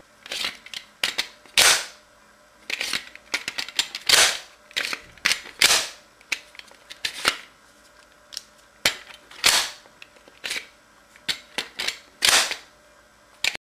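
A Generation 2 Glock 23 pistol being handled and its mechanism worked: a dozen or so sharp clicks and clacks at irregular intervals, the loudest about 2, 4, 7, 9.5 and 12 seconds in.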